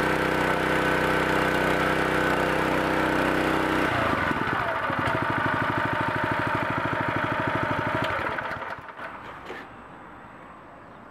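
Small Honda GX engine on a log splitter running steadily. About four seconds in it drops to a slower idle with separate firing beats, and shortly before nine seconds it is shut off and runs down to a stop.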